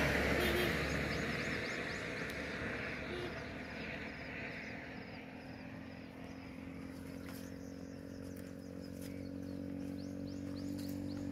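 An engine hum fading away, small birds chirping in short repeated notes, and near the end another engine hum growing louder as it approaches.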